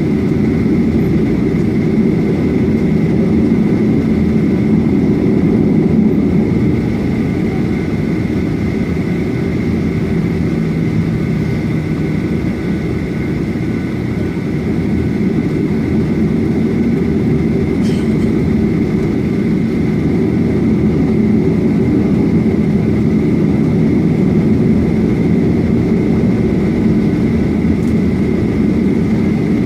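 Cabin noise inside a Boeing 737-800 on the ground with its CFM56-7B engines running at idle: a steady low drone with a thin high whine above it.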